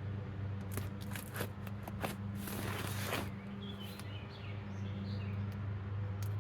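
Hands handling and working open a package: scattered small clicks and knocks, with a longer rustling, scraping burst about two and a half seconds in. Faint bird chirps over a steady low hum in the background.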